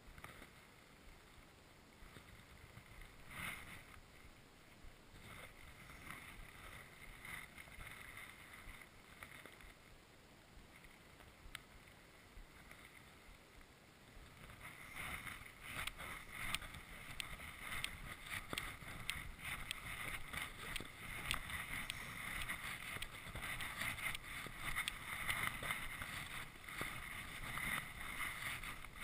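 Sled sliding over a packed-snow trail: a faint hiss at first, becoming a louder, rougher scraping about halfway through, with many small irregular clicks as it picks up speed.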